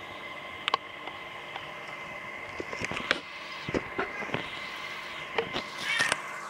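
Aquarium equipment running with a steady hum and hiss, with bubbles gurgling and popping at the water's surface from about two and a half seconds in, loudest near the end.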